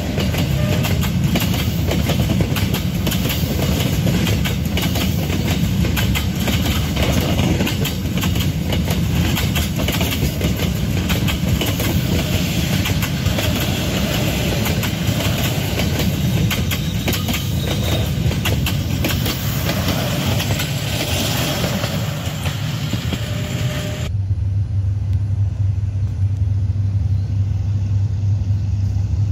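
Passenger train coaches passing close by: steel wheels running on the rail, a dense noise full of sharp knocks. About 24 seconds in this cuts off suddenly and gives way to the steady low hum of a diesel locomotive approaching in the distance.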